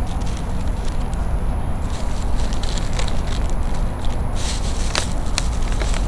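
Outdoor night ambience: a low, unsteady rumble with scattered light crackles and clicks, more of them about four and a half to five seconds in.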